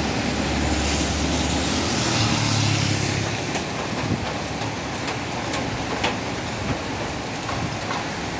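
Steady rain and wind noise. A low hum and swell of hiss, like a vehicle going past, fill the first three seconds or so. Scattered sharp ticks like drips come through later.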